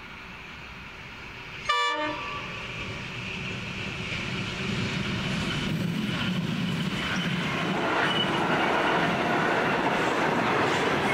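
A brief horn blast from the lead NR class diesel locomotive about two seconds in. Then a three-locomotive container train passes close by, its diesel engines and rolling wagons growing steadily louder.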